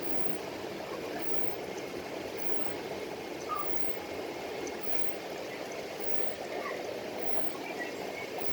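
Steady running and trickling water of aquarium tanks, an even wash of sound with no breaks.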